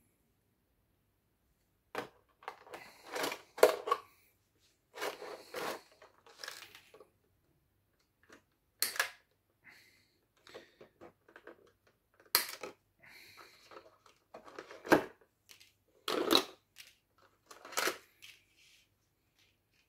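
Clear plastic blister tray from an action-figure box being handled, crinkling and crackling in irregular bursts, with a few sharper snaps; it starts about two seconds in.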